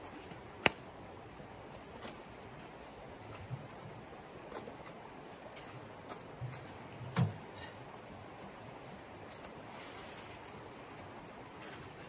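Steady rush of a creek running close by, with a sharp knock of camp gear being handled about a second in, a duller knock around seven seconds in, and a few lighter taps and rubbing in between.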